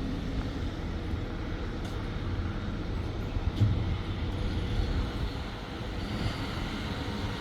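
Steady low rumble of a heavy diesel engine running at idle.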